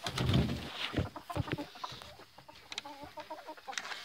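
Hens clucking at the open door of a wooden coop, with a quick run of short clucks about three seconds in. A few knocks and rustling near the start.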